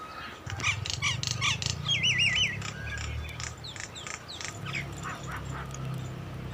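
Birds calling: a burst of harsh, repeated squawking notes, then a warbling trill about two seconds in, followed by a string of short falling whistles, over a steady low hum.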